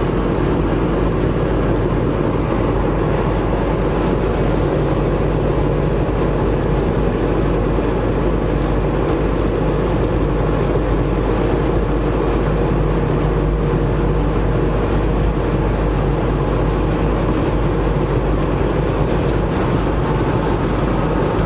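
Steady, unbroken running noise of a vehicle's engine and motion, a low rumble with a faint steady hum in it.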